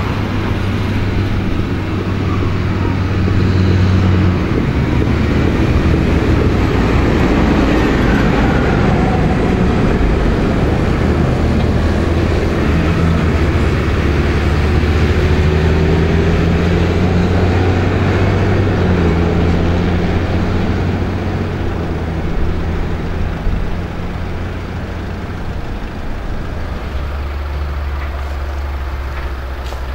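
New Holland 8970A tractor's six-cylinder diesel engine running steadily as it hauls a slurry tanker and trailer along the road, its note changing a few times.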